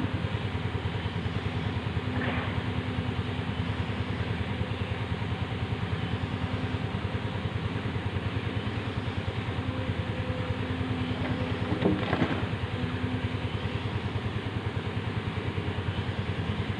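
Excavator's diesel engine running steadily, with one brief louder clank about twelve seconds in.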